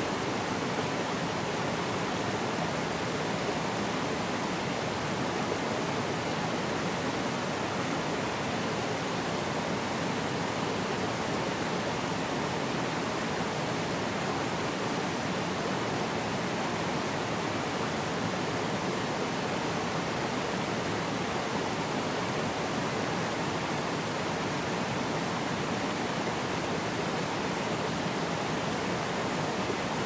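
Forest stream flowing over rocks and small cascades: a steady, even rush of water.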